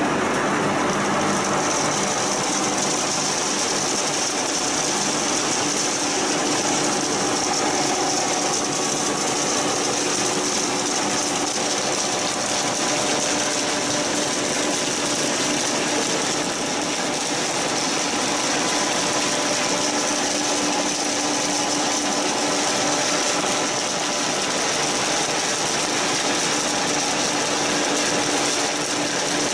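Feed pellet line machinery running steadily: the continuous mechanical hum and rattle of the motor-driven mixer and pellet mill, with a few steady tones. A steady high-pitched hiss sets in about a second and a half in.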